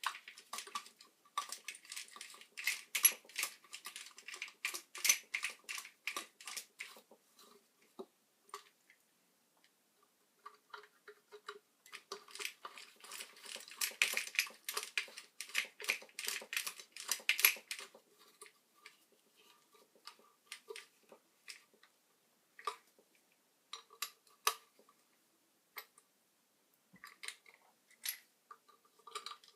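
Rapid small clicks and metallic clinks, as of hand tools and small parts being handled, coming thick in two runs of several seconds each and sparser in between.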